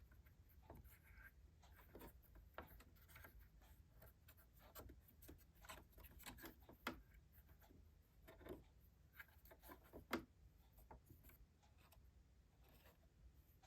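Faint, irregular scratching and light clicking of a cotton swab scrubbing lint out of a sewing machine's feed dogs and bobbin area.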